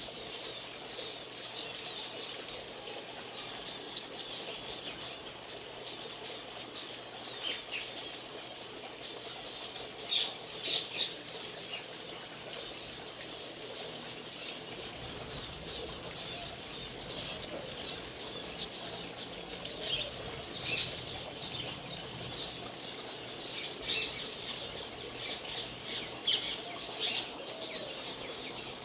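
Many birds chirping and calling together in a continuous chorus, with sharper, louder calls now and then.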